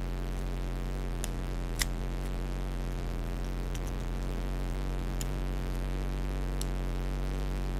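Steady low hum and hiss, with a few faint clicks of small plastic toy-car parts being handled. The sharpest click comes about two seconds in.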